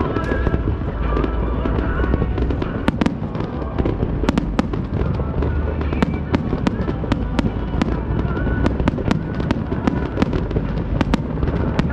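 Aerial fireworks display: a steady low rumble of bursts with many sharp crackles, thickest from about three seconds in.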